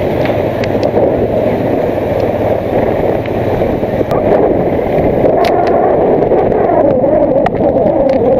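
TVS Apache RTR 180 motorcycle running at low road speed, its engine mixed with wind buffeting the microphone.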